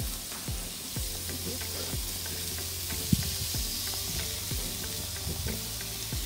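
Raw beef burger patties sizzling on hot grill grates, a steady hiss, with small knocks and taps as patties are handled and placed, the sharpest about three seconds in.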